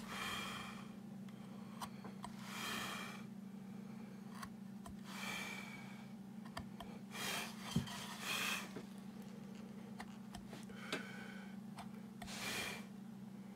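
Hand woodcarving with a semicircular gouge: small clicks and soft scrapes of the steel cutting wood, with the carver's breathing heard as short puffs every two to three seconds, over a steady low hum.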